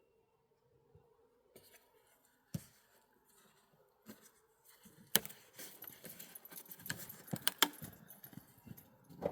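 Light metallic jingling and clinking, a quick run of sharp clicks starting about five seconds in after a single click earlier.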